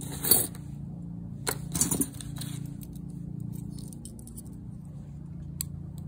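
Costume jewelry, a pearl necklace and fine metal chains, clinking and rattling as it is handled and sorted on a table. There are a few sharp clicks, the loudest just after the start and more about two seconds in, over a low steady hum.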